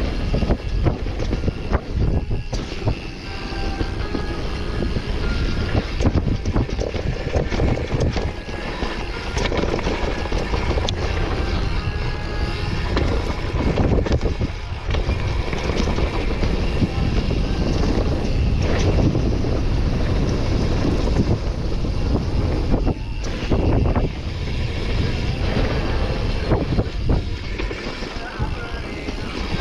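Wind buffeting the microphone and knobby tyres rolling over a dirt trail on a dirt-jump bike ridden downhill. The bike's frame and parts clatter over bumps, with frequent short knocks throughout.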